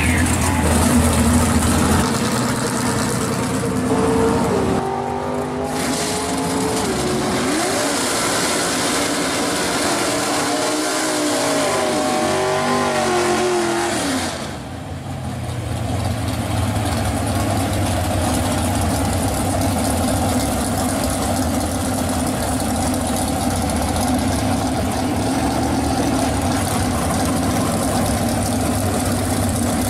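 Drag-racing V8 muscle car engines, among them a 1965 Pontiac GTO's: a deep idle rumble, then several seconds of revving that climbs and falls again and again. About halfway through the sound dips briefly, then settles into a steady idle.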